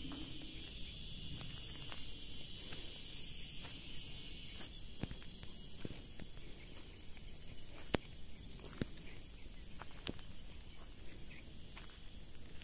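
Steady high-pitched chirring of insects, which drops in level about four and a half seconds in. Scattered crunching footsteps on a stony dirt track.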